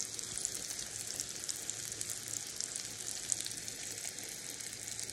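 Grease sizzling on a hot griddle: a steady frying hiss with many small crackling pops.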